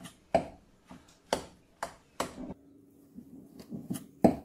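Butter knife knocking against a glass mixing bowl as it cuts and folds wet soda bread dough: a handful of sharp, irregular clinks with fainter ticks between, the loudest near the end.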